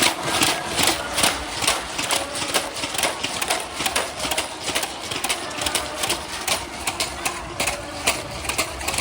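Rapid, uneven run of sharp taps and knocks, several a second, from play on an indoor gymnasium court.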